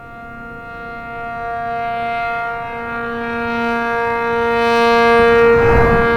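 ACA P-50 rotating dual-tone electromechanical siren sounding a steady alert chord of about 466 and 700 Hz. It grows louder as the slowly rotating horn swings toward the listener, peaking near the end with a low rumble.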